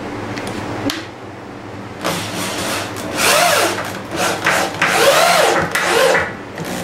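Corded power drill driving a 2.5-inch screw into a pine 2x4, run in several bursts from about two seconds in, the motor speeding up and slowing down between them.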